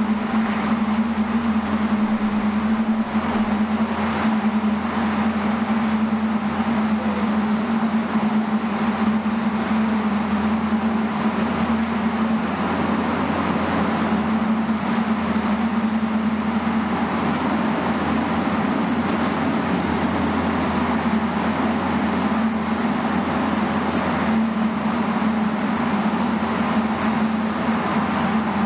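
Steady drone of heavy demolition machinery: the diesel engine of a Hitachi high-reach demolition excavator and a dust-suppression mist cannon running together, with a strong low hum. The hum weakens for a stretch in the middle and returns near the end.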